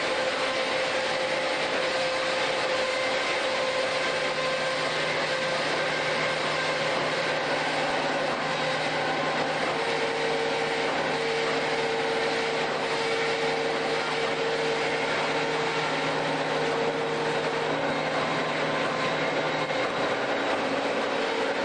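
HEMSAW DC8080 industrial bandsaw running, its blade cutting through the steel body of a pickup truck: a steady grinding din with a low hum, and a higher whine that comes and goes through the middle.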